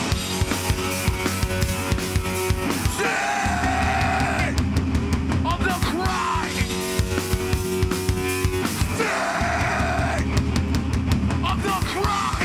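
Hardcore punk band playing live: fast, driving drums and distorted electric guitar and bass, with shouted vocals coming in twice in stretches.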